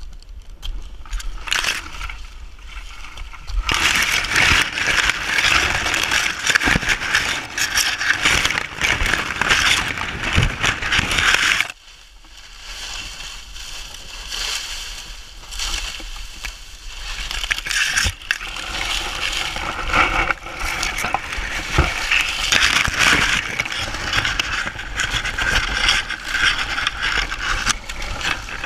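Dry, dead fronds of a Mexican fan palm rustling and crackling as they are grabbed, pulled and pushed through at close range. The crackling comes in two long stretches with a quieter spell in the middle.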